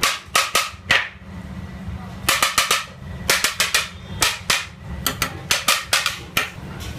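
Quick clusters of sharp metallic clanks and taps, a steel utensil knocking against a large biryani cooking pot, with a short ring after each hit.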